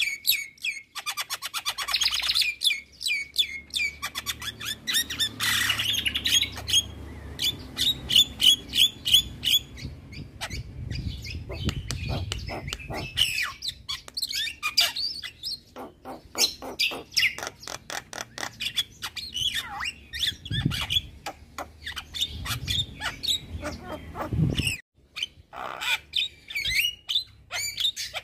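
Javan myna singing a long, varied song of rapid chattering clicks, trills and short whistled glides, with a brief pause about 25 seconds in.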